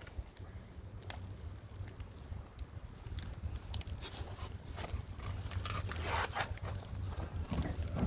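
Wind rumbling on the microphone, with scattered knocks and scrapes of a piece of oak wood being handled into a charcoal smoker's firebox, the scraping getting busier from about five seconds in.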